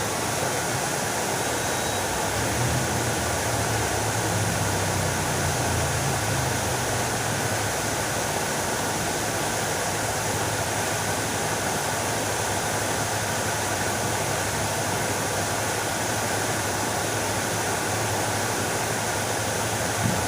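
Fountain water splashing and falling steadily, an even rushing noise. A low hum sits underneath, stronger for the first several seconds.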